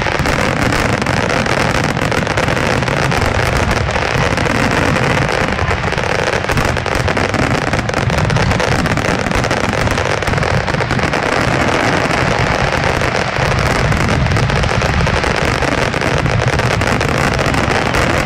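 Fireworks display going off in a dense barrage, with many overlapping bangs and crackles running together at a steady loudness.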